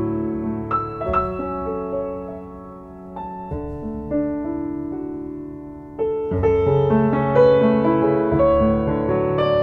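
Background piano music: a slow melody of held notes, softer in the middle and growing louder about six seconds in.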